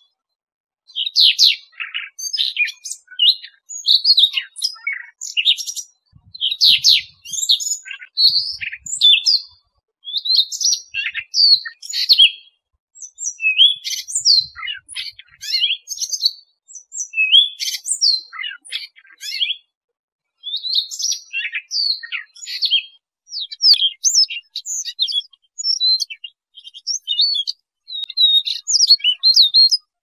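Siberian rubythroat singing: a long run of varied, quick warbling phrases, each a second or two long with short pauses between them.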